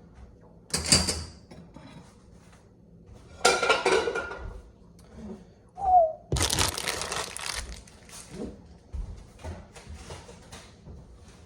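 Kitchen handling noise: a few separate clatters and rustles of containers and utensils, the longest about six and a half seconds in, with a brief squeak just before it.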